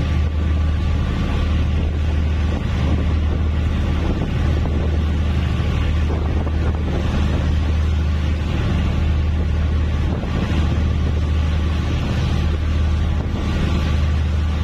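Steady low drone of a ship's engine, with wind on the microphone and the rush of the sea swelling and fading every few seconds.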